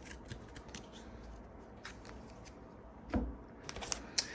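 Faint handling of trading cards: light rubbing and small clicks as the cards are gathered and moved, with a soft knock about three seconds in and quicker clicking near the end.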